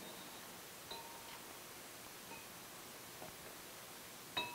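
A few light clinks of steel test strips against glass beakers, the loudest near the end, each with a brief ringing tone, over a faint steady hiss.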